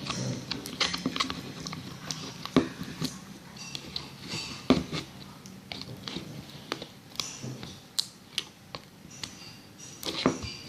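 Homemade slime of glue, soap and borax being stirred and worked with a spoon in a container: irregular sticky clicks, taps and squelches, a few a second.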